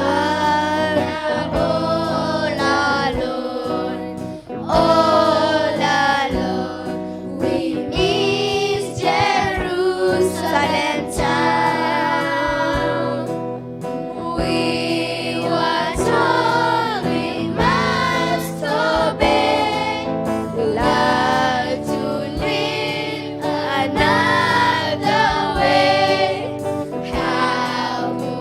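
A group of voices singing a song with steady instrumental accompaniment, one phrase after another.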